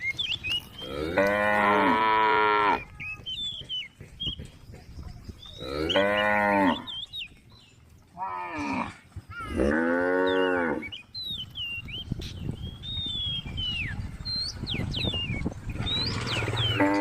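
Cows mooing, about five long, deep calls a few seconds apart.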